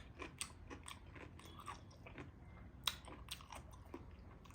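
Close-up chewing with irregular crisp crunches, a mouthful of Nepali radish pickle (mula ko achar) being bitten and chewed. One sharper crunch comes about three seconds in.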